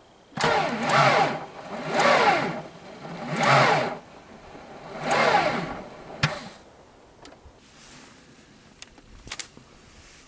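Starter motor on a VW 1.9 L AAZ diesel cranking in four short bursts, each falling in pitch as it bogs down: it can hardly turn the engine over, which is held back by a seized alternator. A sharp click follows about six seconds in.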